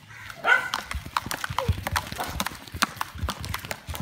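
Irregular patter of sharp taps as children roll old bicycle tyres along with sticks and run after them. A loud child's shout about half a second in is the loudest sound.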